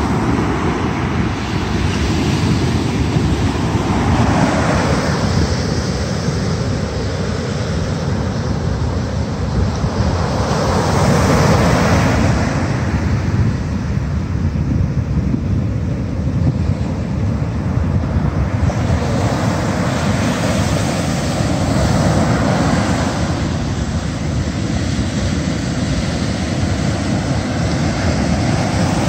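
Ocean surf breaking and washing up the beach, swelling and fading every several seconds, with wind noise on the microphone.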